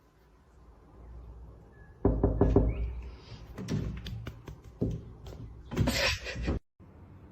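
A series of knocks and thuds: a quick run of them about two seconds in, scattered ones after, and a louder rattling clatter near the end that cuts off suddenly.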